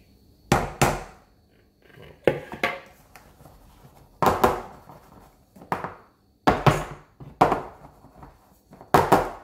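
Round aluminium cake pan full of batter knocked repeatedly on a stone countertop: a dozen or so sharp knocks, often in quick pairs.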